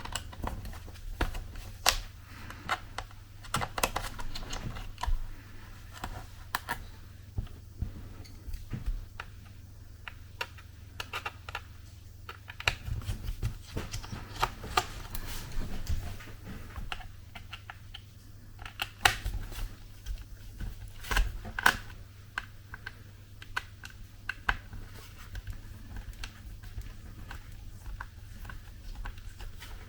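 Torx screwdriver backing the screws out of a Lenovo Yoga laptop's bottom case: irregular small clicks and taps of the driver and screws against the metal and plastic, over a low steady hum.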